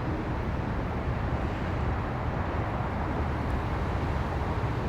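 Freight train of tank cars rolling past, a steady low rumble.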